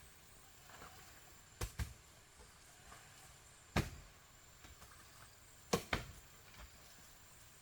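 Hoe blows chopping into soil and roots while digging out a tree stump: three sharp strikes about two seconds apart, the first and last each followed quickly by a second hit.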